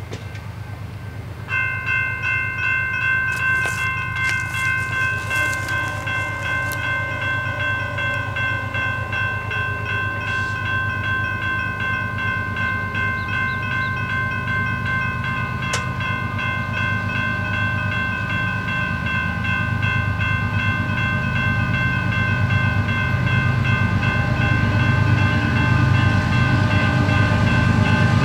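Railroad grade-crossing warning bell ringing continuously, switching on about a second and a half in. Under it, the low rumble of an approaching BNSF diesel freight locomotive grows steadily louder.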